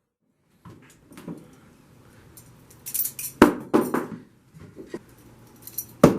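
Butterfly knife (balisong) being flipped by hand: its metal handles clack and rattle against each other in irregular clicks, the loudest about three and a half seconds in.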